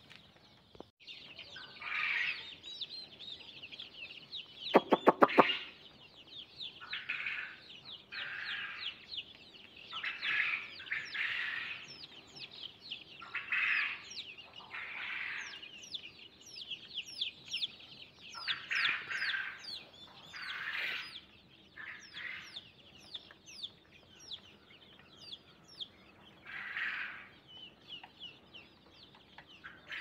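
A brood of young chicks peeping continuously, many short high chirps that slide downward in pitch and overlap one another. About five seconds in there is a quick rattle of sharp clicks.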